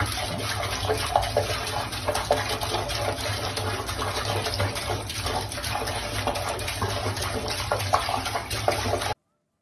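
Water running steadily from a bathroom faucet into a sink, the stream splashing and breaking up as a cat paws at it. The sound cuts off abruptly shortly before the end.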